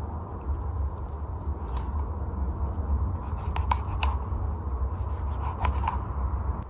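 Fillet knife cutting through a whole salmon along its rib bones: scattered small crisp clicks and scrapes as the blade works over the bones, a few at a time, over a steady low rumble.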